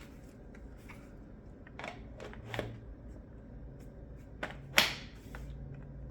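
Hard plastic highchair parts being handled and fitted together: scattered light clicks, taps and rustles, with one sharper click about five seconds in.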